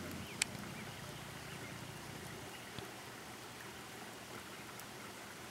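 Faint, steady outdoor background hiss, with one small click about half a second in.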